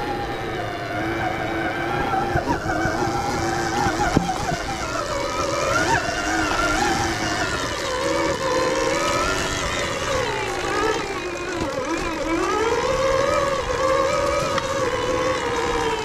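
Electric dirt bike's motor whining as it rides a bumpy trail, the pitch rising and falling with speed and throttle, over a rough rumble of tyres and wind. A few small knocks from the bike going over bumps.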